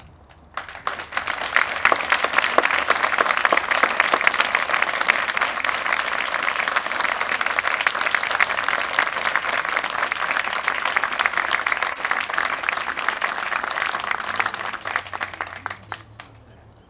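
Audience applauding, swelling within the first second or so and dying away near the end.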